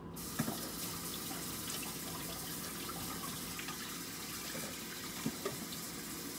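Kitchen tap running into a sink as hands are washed, a steady rush of water with a few small knocks of hands and objects in the sink.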